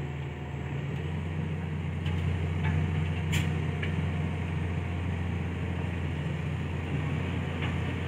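Heavy diesel dump truck engine running steadily while the hydraulic hoist holds the bed up to tip a load of dirt and rock, with a sharp knock about three and a half seconds in.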